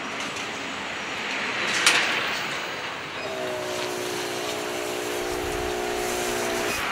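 City street traffic: a vehicle passes about two seconds in. About a second later a steady droning hum of several notes sets in, its pitch dipping briefly near the end.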